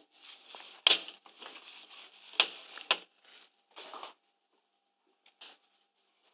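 Rustling and scratching against upholstery fabric for about four seconds, with three sharp clicks among it: about a second in, at two and a half seconds and at three seconds. One faint tick follows near the end.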